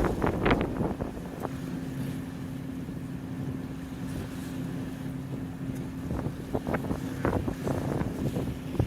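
The Royal Princess harbour cruise boat's engine running with a steady hum. Wind buffets the microphone in gusts at the start and again over the last few seconds.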